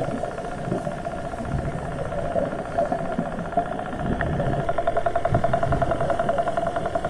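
Steady motor drone heard underwater, with a fast, even pulsing that grows stronger about halfway through.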